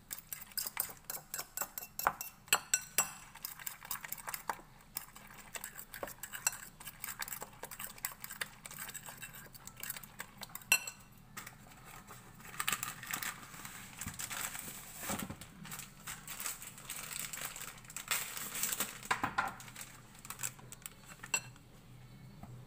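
Metal spoon stirring and beating egg batter in a bowl, a quick run of clinks and taps against the sides. About halfway through the clinking thins out into softer scraping and rustling.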